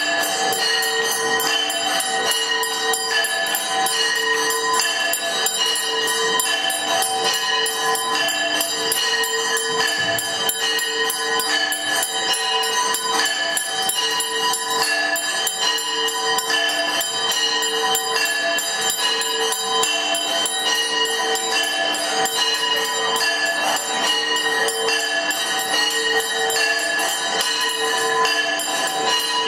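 Temple bells ringing continuously for a Hindu arti, a dense, steady clangour of many overlapping ringing tones with no break.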